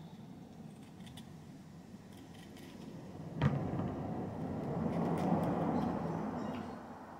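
Kitchen knife peeling a June plum, with faint scrapes and small clicks. A sharp click comes about three and a half seconds in, then a rushing noise swells for about three seconds and fades.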